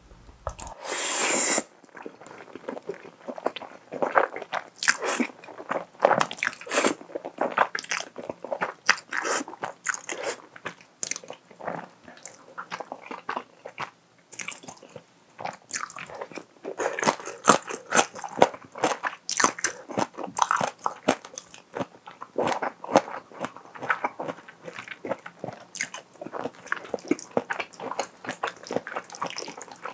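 Close-miked eating: a loud slurp of creamy wide pasta noodles about a second in, then wet chewing of pasta and shrimp with many short smacking clicks.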